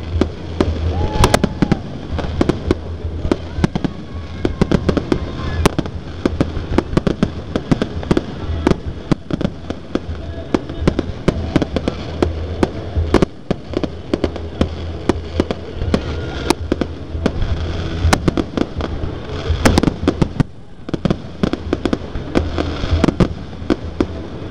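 Fireworks display: aerial shells bursting in quick succession, many bangs a second, with a short lull about twenty seconds in.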